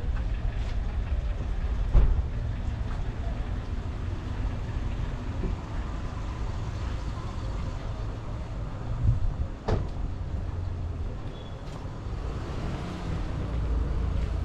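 City street ambience: a steady low rumble of traffic, with two sharp knocks, one about two seconds in and another near ten seconds.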